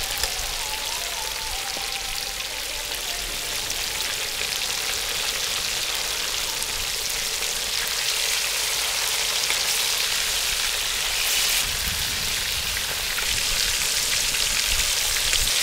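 Marinated fish steaks sizzling in hot oil on a large flat tawa, a steady hiss of frying. They are frying on their second side after being turned.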